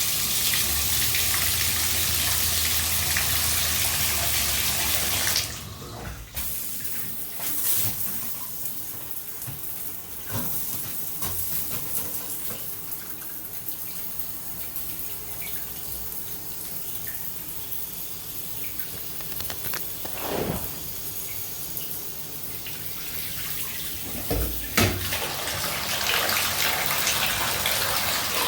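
Bathtub faucet running hard into the tub, filling it to leak-test a newly fitted waste and overflow. The flow cuts off suddenly about five seconds in, leaving quieter water noise with a few knocks, and the rush of water builds again near the end.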